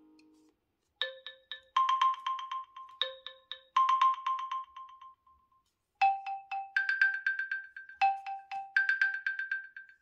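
OnePlus 9 Pro ringtone playing: a bright marimba-like melody of quickly repeated notes, starting about a second in and falling into two phrases, the second beginning about six seconds in at a different pitch.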